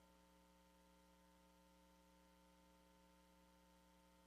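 Near silence: a faint, steady electrical hum under low hiss.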